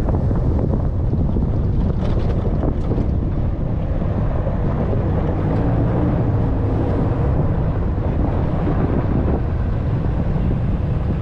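Steady, loud wind buffeting on a hood-mounted camera's microphone as a Dodge Ram 3500 pickup drives a dirt off-road track, with the truck's low running rumble beneath it.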